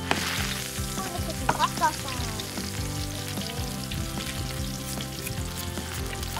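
Sizzle of food frying in a pan, a steady hiss that starts suddenly: a frying sound effect for a toy grill, over soft background music.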